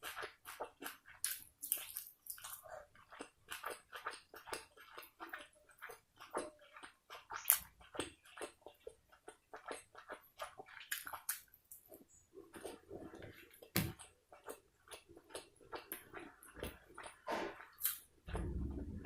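Close-miked chewing of egg biryani and chicken kosha: irregular wet mouth clicks and lip smacks, with now and then a fuller, lower mouthful sound.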